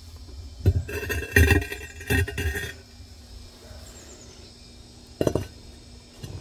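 Glazed ceramic platter clinking and scraping against the kiln shelf as it is lifted out of the kiln: a cluster of ringing clinks and knocks about a second in, then one more knock about five seconds in.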